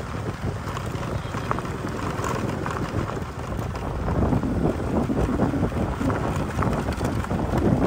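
Wind buffeting the microphone: a steady low rumble that grows a little louder about halfway through.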